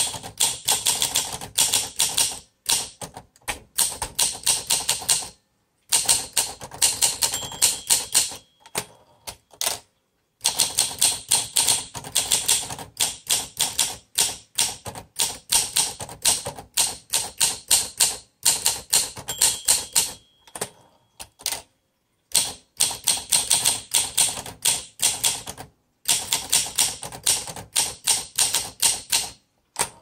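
1951 Olympia SM2 manual portable typewriter being typed on: quick runs of firm keystrokes, typebars striking the platen, broken by short pauses. The keys are struck hard, as this machine likes a heavy hand. The margin bell rings briefly twice, about a third of the way in and again past halfway.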